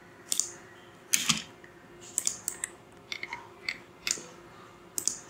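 Computer keyboard keystrokes and mouse clicks: about a dozen short, irregular clicks, some in quick runs, with no speech.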